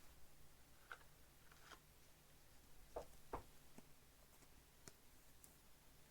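Near silence with a few faint clicks and taps from trading cards being handled, the two clearest about three seconds in.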